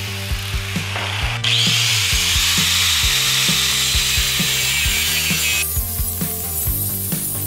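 Angle grinder with a cut-off wheel cutting through a steel motorcycle exhaust pipe. The high grinding hiss starts about a second and a half in and stops a little under two seconds before the end. Background music with a steady beat plays underneath.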